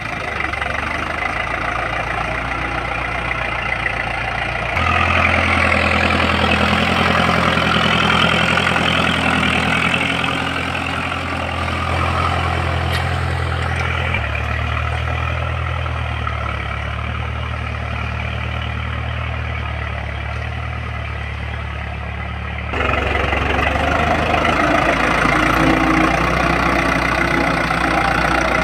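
Diesel engine of an Iseki 6500 farm tractor running steadily under load while pulling a disc plough through orchard soil. Its level and pitch jump abruptly about five seconds in, again near the middle and near the end.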